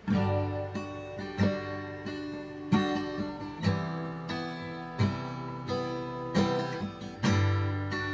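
Acoustic guitar played slowly, a new chord sounded about every second and left to ring into the next.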